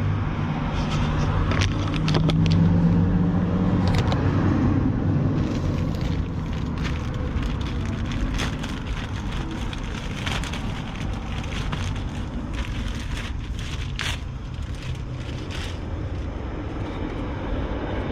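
Plastic packaging on a new cabin air filter crinkling and tearing as it is opened by hand, in many short crackles. Underneath is a steady low hum, loudest in the first few seconds.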